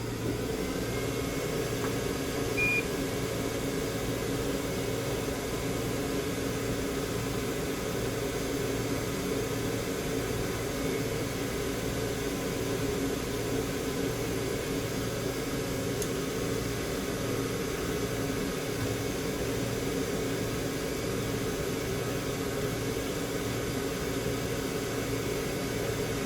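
Solder fume extractor fan running steadily with a constant hum, switched on by foot pedal. One short electronic beep about three seconds in.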